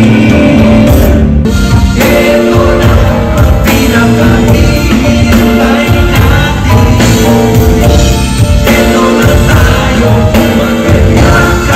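Male vocalists singing a song live into microphones over a band with drums, loud and continuous.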